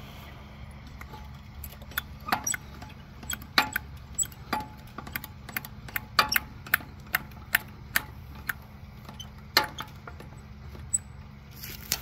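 Hand-cranked leveling jack on a Vallee Big Red portable sawmill frame being wound: a run of irregular metallic clicks and clinks from the crank and screw, starting about two seconds in.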